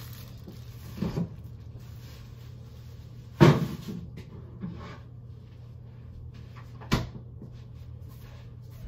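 Kitchen doors being shut: a light knock about a second in, a hard thump of a door closing about three and a half seconds in, which is the loudest sound, and a sharp click near seven seconds, over a steady low hum.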